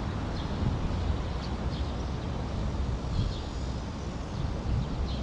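Steady outdoor background noise: a low rumble under an even hiss, with a few faint short high ticks.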